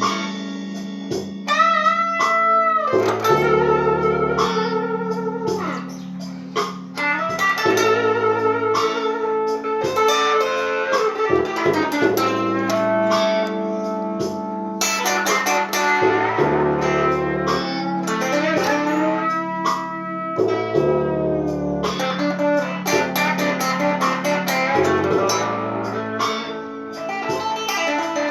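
Blues guitar playing a lead line with bent notes over a steady bass line.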